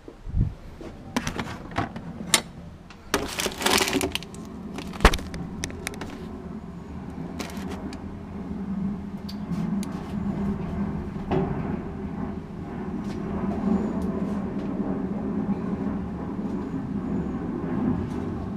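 Tools knocking and clanking on the metal of a gas dryer's blower wheel assembly as it is worked loose, with one sharp knock about five seconds in; after that a steady mechanical hum rises slowly in level.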